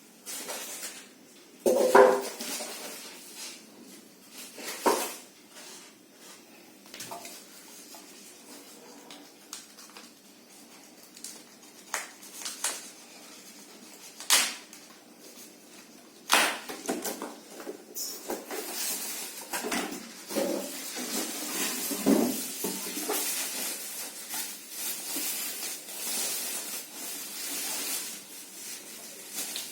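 Packaging being cut open and handled while unboxing a speaker: scattered knocks and clicks, the loudest about two seconds in, then steadier rustling through the second half.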